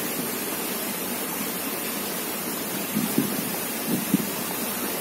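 Steady, even hiss of outdoor background noise, with a few soft knocks from handling about three and four seconds in.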